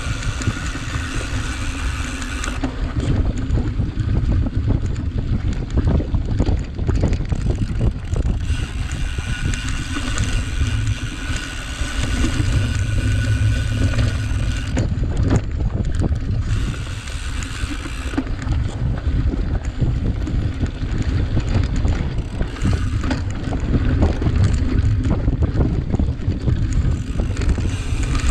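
Cyclocross bike being ridden over rough ground: loud, steady wind buffeting on the microphone, with a dense rattle of the bike and tyres over the terrain.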